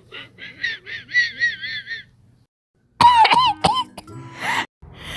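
A high-pitched, squeaky character laugh done by a voice actor: a quick run of giggles for about two seconds. After a second's pause comes a shorter, lower laugh, then a few breathy gasps.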